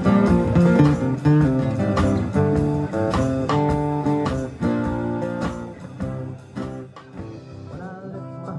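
Two amplified acoustic guitars playing an instrumental passage of picked notes and strums, growing quieter over the last few seconds.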